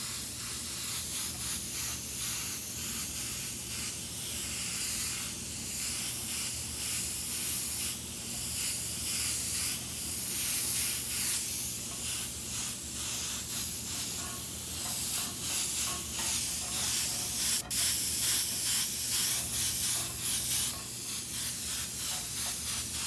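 Airbrush spraying green paint: a continuous hiss of air and paint that swells and dips as the trigger is worked, and cuts off at the very end.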